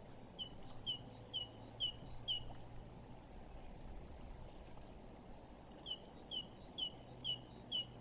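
A small songbird singing two phrases, each a run of about five two-note calls, a high note dropping to a lower one, a little over two a second. There is a pause of about three seconds between the phrases, over a faint steady outdoor background.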